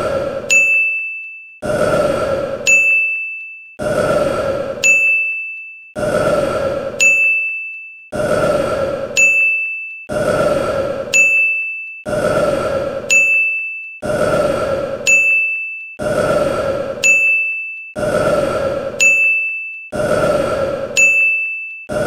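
The same recorded man's burp looped again and again, each one followed by a bright bell-like ding, one burp and ding about every two seconds.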